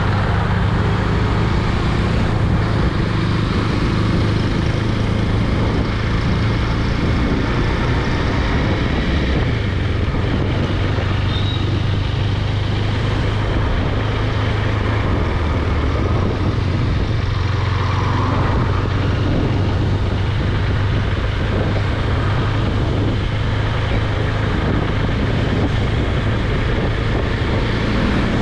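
KTM Duke 390's single-cylinder engine running at a steady, even pace while riding, with road noise.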